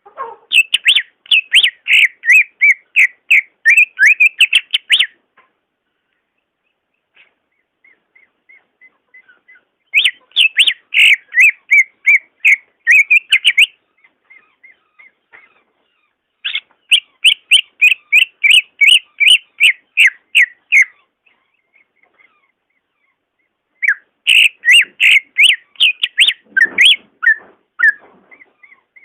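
Green leafbird (cucak ijo) singing: four bouts of fast, evenly repeated loud whistled notes, several a second, each bout lasting about four to five seconds, with a few faint scattered notes in the pauses between.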